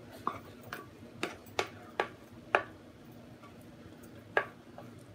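Kitchenware clinking and knocking: six short, sharp hits of utensils against dishes in the first three seconds, then one more about four seconds in.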